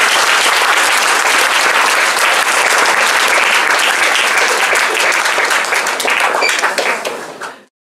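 A large indoor audience applauding steadily with many hands, fading out quickly near the end.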